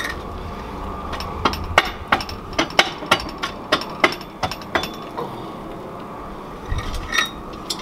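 Hammer blows knocking a part into a pit bike's rear wheel assembly: about a dozen quick strikes, roughly three a second, starting about a second and a half in. After a pause, one or two more blows come near the end.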